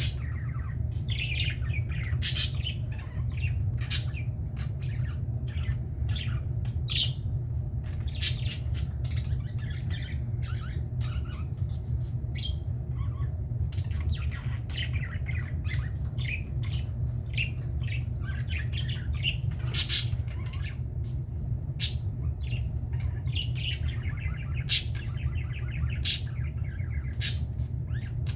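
A group of budgerigars chattering and squawking, with many short calls overlapping without pause, over a steady low hum.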